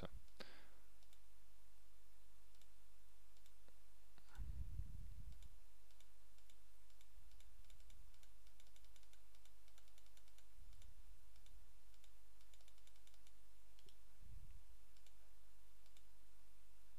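Faint computer mouse clicks, scattered and irregular, over a steady low hum, with a few soft low thumps.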